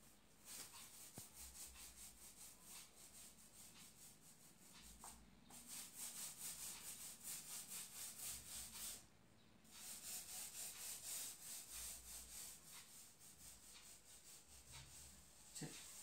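Small paint roller worked back and forth over a painted wall, a faint rhythmic rubbing of quick repeated strokes. It pauses briefly about five seconds in and again about nine seconds in.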